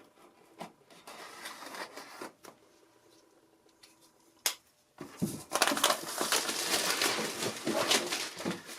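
Knife scratching and tapping at the plastic wrap on a keyboard box. About five seconds in, the plastic wrapping starts crinkling steadily as it is pulled off.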